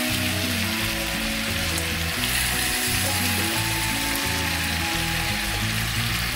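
Tandoori-marinated chicken leg pieces sizzling and frying in a pan, a steady hiss, with background music underneath.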